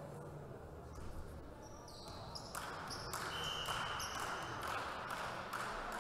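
A volleyball bounced a few times on a wooden sports-hall floor before a serve. From about two and a half seconds in, voices and crowd noise in the hall grow louder.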